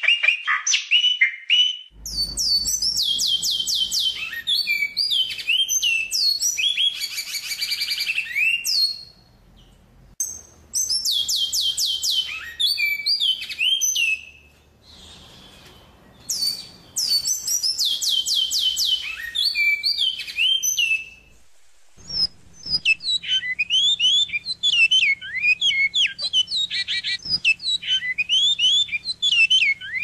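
Songbirds singing in turn. First the close of a lower warbled song, then a high, very fast trilled and warbling song in phrases with short pauses between them. Near the end it gives way to a different song of quick, repeated descending whistled notes.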